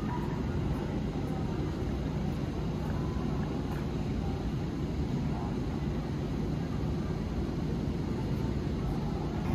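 Steady outdoor city-street ambience: a low, even rumble of distant traffic.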